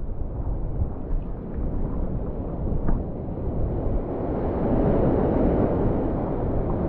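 Wind buffeting the microphone over rushing water while wingfoiling, swelling to its loudest about five seconds in.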